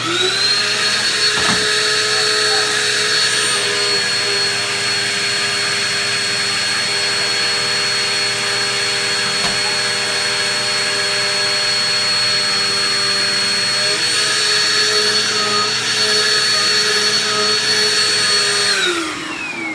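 Vacuum cleaner switched on, its motor whine rising quickly to a steady high pitch and running steadily, then switched off about a second before the end, the whine falling away as the motor spins down.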